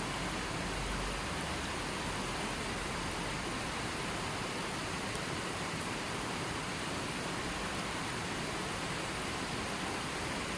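Steady, even rushing of water, a constant hiss with no distinct drops or splashes.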